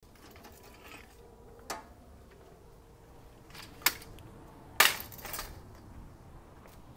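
Folding metal-framed beach chair being opened and set down on concrete: a few sharp metal clacks, the loudest about five seconds in.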